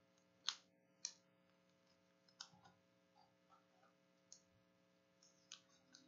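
Several faint, separate clicks of trading cards being handled and slipped into clear plastic card sleeves.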